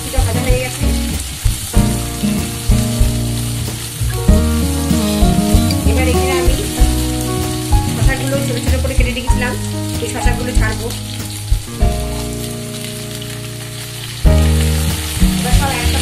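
Cubed potatoes sizzling in hot oil in a frying pan, stirred with a spatula that knocks and scrapes against the pan in sharp clicks; cucumber pieces are tipped in partway through. Background music with held chords runs underneath.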